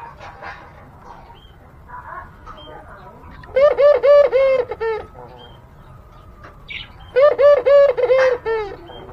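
Ringneck dove (burung puter) giving its courting coo: two loud bouts of quick, evenly spaced cooing notes, the second about three seconds after the first.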